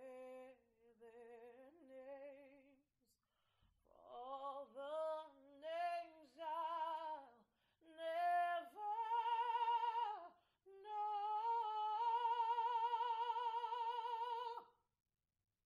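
A woman singing solo and unaccompanied, with strong vibrato, in short phrases that climb in pitch to a long held high note, which stops about a second before the end.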